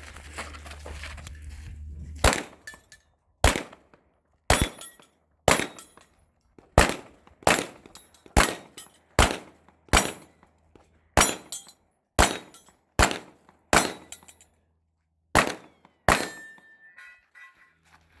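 Sig Sauer P320 Legion pistol firing a string of about sixteen shots at a steady pace of roughly one a second, with a short pause before the last two.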